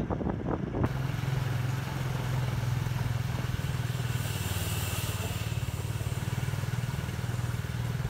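Small motorbike engine running at a steady, even speed as it rides along, a low hum with road noise. A brief hiss rises about four seconds in.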